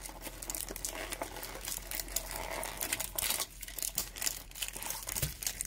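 Cardboard trading-card hanger box being torn open and handled by hand: irregular crinkling and crackling of the packaging with small tearing sounds.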